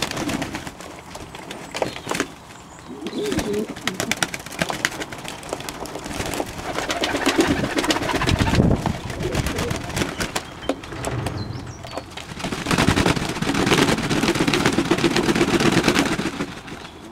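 Fantail pigeons cooing in several spells, with quick wing flaps and scuffling as the flock crowds around a water bowl.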